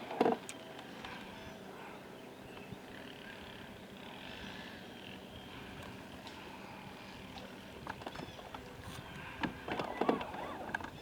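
Quiet ambience aboard a fishing boat on a lake: a faint steady hum under an even background hiss, with a short sharp sound at the very start and a few brief knocks and sounds near the end.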